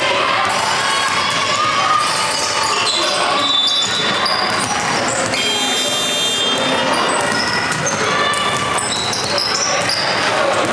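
A ball bouncing on the floor of an indoor sports hall, with short high squeaks and a steady din of voices throughout.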